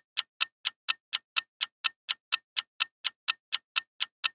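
Countdown-timer sound effect: a clock ticking evenly, about four ticks a second.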